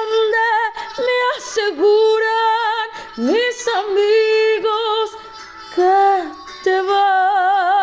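A woman singing long held notes with a wide vibrato in a regional Mexican song, in several phrases with short breaks between them.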